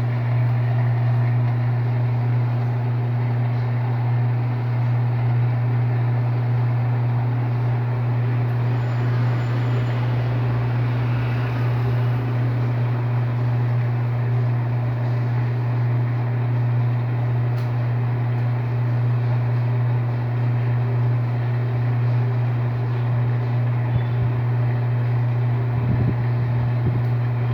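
Electrolux LTD13 washing machine spinning in the second rinse: a steady, loud motor hum with drum whir, holding a constant speed. A few soft low knocks come near the end.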